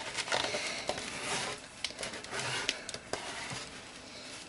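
Handling noise from a PVC-pipe potato cannon being cleaned: a rubbing, brushing sound at first, then scattered light clicks and knocks of the plastic pipe.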